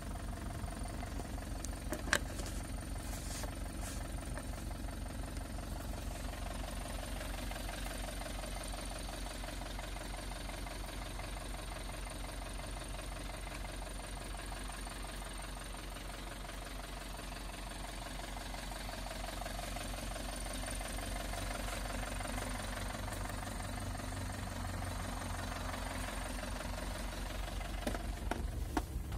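Fiat Ducato's 2.5-litre four-cylinder turbodiesel engine idling steadily, with a single sharp knock about two seconds in.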